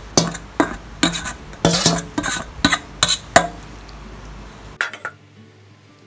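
A metal spoon clinking and scraping against a stainless steel bowl as flaked fish is knocked out onto a wooden chopping board, in sharp taps about twice a second for the first few seconds. Near the end it cuts to faint background music.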